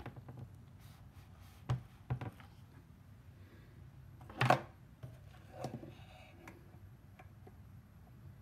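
Handling noise: a few short knocks and rustles as the paper worksheet and the recording phone are moved, the loudest about four and a half seconds in, over a faint steady room hum.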